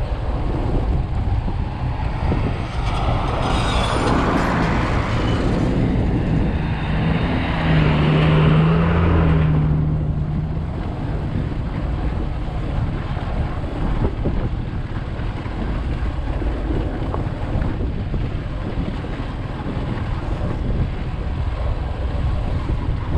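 Motorcycle riding on a rough dirt road: steady wind rush on the microphone over the engine and tyres. From about three to ten seconds in it grows louder and brighter, with an engine hum coming up near the middle, then settles back to the steady rush.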